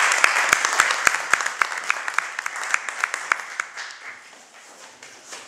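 Applause from a small group of people, dying away over the first few seconds.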